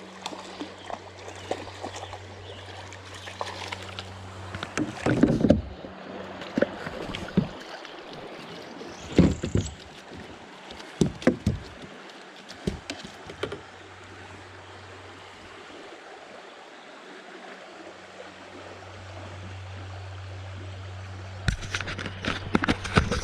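Water sloshing and splashing against a kayak, with several sudden loud splashes and knocks: around five seconds in, around nine and eleven seconds in, and a cluster near the end. A steady low hum runs underneath and fades out for a few seconds midway.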